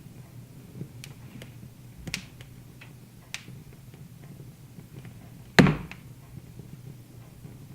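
Wood fire crackling, with irregular sharp pops over a steady low rumble of the burning logs; one much louder pop about five and a half seconds in.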